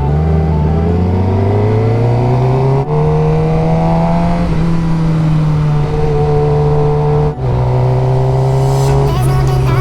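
Vehicle engine accelerating through the gears, its pitch rising and then breaking off briefly at two upshifts, about three seconds and seven seconds in.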